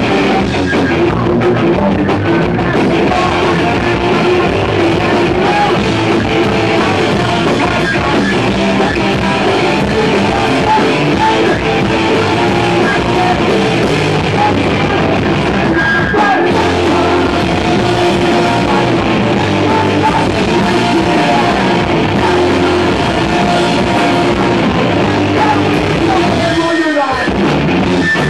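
Live punk rock band playing loud and fast: electric guitars and drum kit with sung vocals into a microphone. Near the end there is a sliding drop in pitch.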